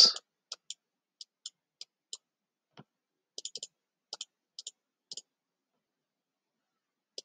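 Light, irregular clicks of a computer pointing device as handwriting is drawn stroke by stroke on a screen canvas, with one undo. There are about fifteen short, sharp clicks, some in quick pairs, that stop about five seconds in, then one more near the end.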